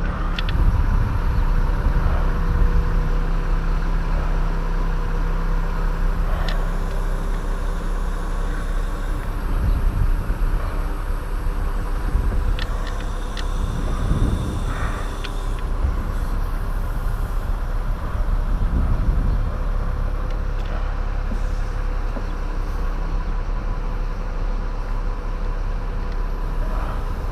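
A steady engine hum, like a truck idling, runs throughout under a low rumble, with a few short clicks and knocks from the climber's gear.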